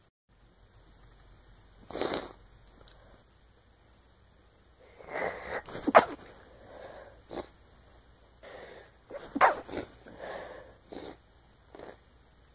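A woman sneezing: two sharp, loud sneezes about three and a half seconds apart, each after a short run-up of breaths, with shorter breath sounds before and after.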